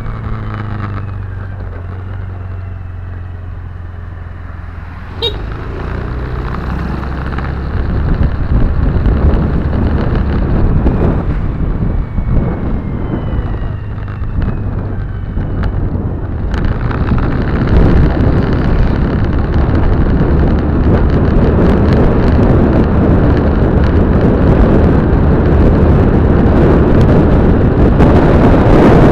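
Car running on the road, heard from inside through a windscreen-mounted dashcam: a steady low engine hum at first, then road and wind noise that grows louder from about eight seconds in as the car picks up speed. A single sharp click about five seconds in.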